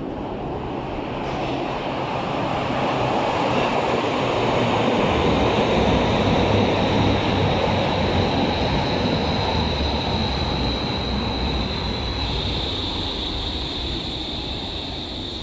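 Berlin U-Bahn train pulling into an underground station: a rushing rumble of wheels on rail that swells as the train runs in along the platform, then eases as it slows. A high steady whine runs through it and drops slightly in pitch about twelve seconds in.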